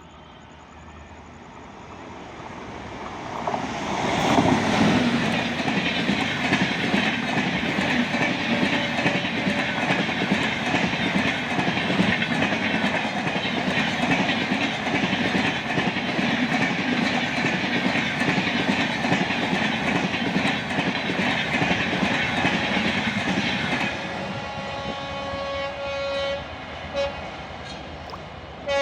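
Indian Railways train approaching and passing at speed: a rising rush that becomes a loud steady rumble with rapid wheel clatter for about twenty seconds, then drops away. Near the end a horn sounds in short blasts.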